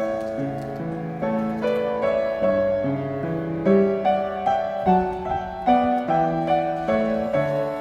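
Background piano music: a gentle melody of separate notes over moving lower notes.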